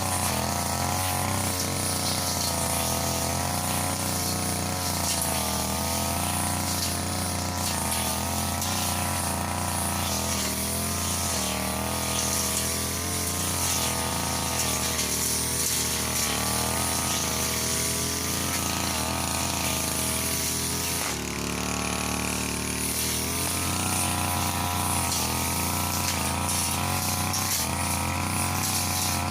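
Brush cutter engine running at high revs while cutting grass, its pitch wavering up and down as the blade meets the grass. The revs drop briefly about two-thirds of the way through, then pick up again.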